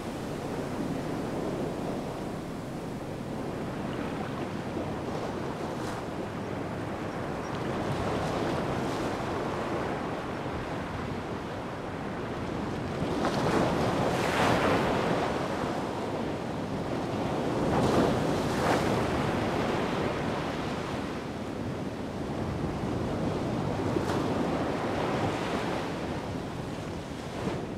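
Atlantic surf: waves breaking and washing in, with a steady rush between and louder swells building and falling about halfway through, a few seconds later, and again near the end. Wind buffets the microphone.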